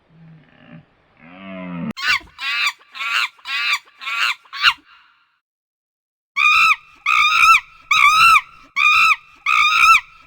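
Animal calls: a low grunting call, then a run of five short high-pitched cries, and after a pause a second run of short repeated calls, about two a second.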